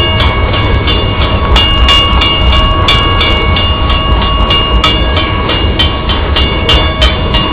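Coal train hopper cars rolling past close by: a heavy, continuous rumble with frequent sharp wheel clicks and steady high ringing tones over it.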